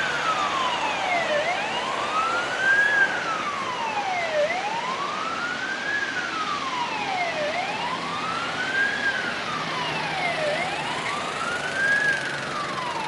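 Emergency-vehicle siren on a slow wail, its pitch rising and falling about every three seconds, over the steady rush of passing traffic.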